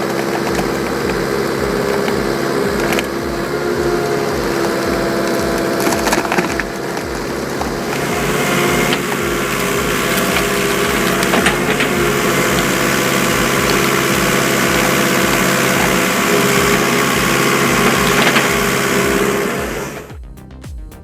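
Excavator engine running steadily while a hydraulic cone splitter screws into a stump, the wood cracking and splintering. Near the end it gives way to background music.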